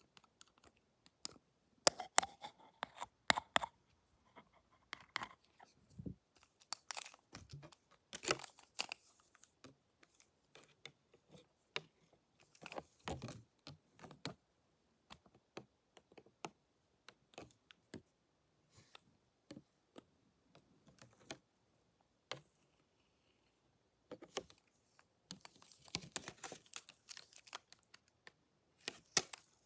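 Close-miked clicks, scratches and rustles of barber tools being handled in an ASMR haircut role-play, coming in irregular bursts with short quiet gaps.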